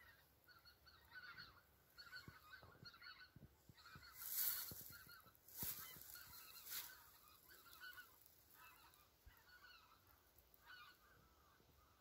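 Faint honking of a flock of migrating geese flying in V-formations: many short calls overlapping and repeating throughout. A few loud rustles on the microphone about four and a half and five and a half seconds in.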